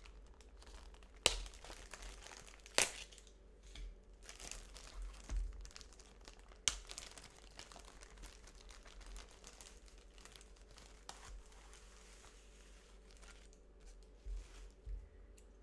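Kit packaging being opened by hand: a cardboard sleeve and a clear plastic bag crinkling and rustling, with a few sharp snaps in the first seven seconds. Quieter handling follows, with a few soft knocks near the end as parts are laid down.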